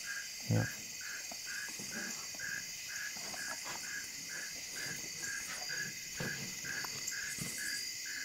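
Steady evening chorus of night insects, with a high chirp repeating about twice a second. A single dull thump comes about half a second in.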